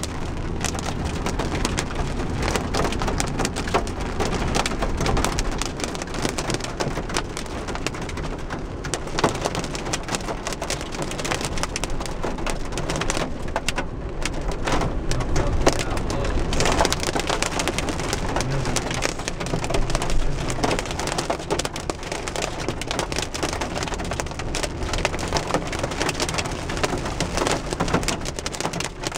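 Heavy rain hitting the roof and windshield of a moving car, heard from inside the cabin as a dense, steady patter over a low, steady rumble of tyres on the wet road.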